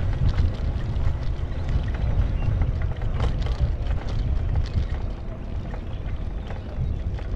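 Steady low rumble of a vehicle on the move, road and engine noise with some wind buffeting.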